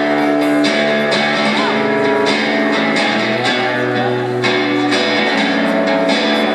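Live music: an amplified acoustic guitar strummed in steady chords through a concert PA.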